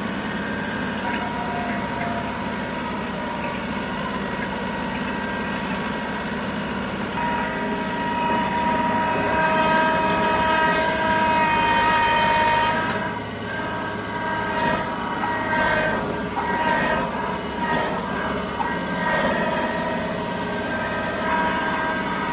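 John Deere compact tractor's three-cylinder diesel engine running steadily as the tractor drives with a log in its loader grapple, a steady whine over the engine that grows louder for several seconds in the middle.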